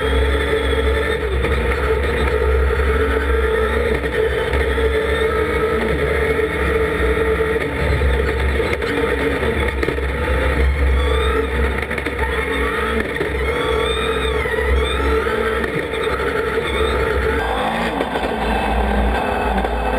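Engine of the Dacia Duster No-Limit race car heard from inside its cockpit, running hard and rising and falling in pitch as it climbs. The sound changes in character near the end as the camera angle changes.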